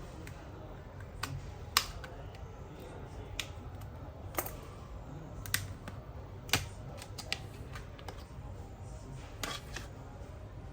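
Sharp, irregular plastic clicks and snaps, about ten of them with the loudest about two seconds in, as the back cover of a Redmi 9A smartphone is pried open with an opening tool.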